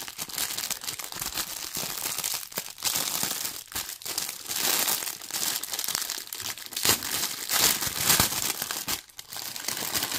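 Heavily taped small parcel being torn open by hand, its packaging crinkling and ripping in an uneven run of rustles and tears, with a short lull near the end.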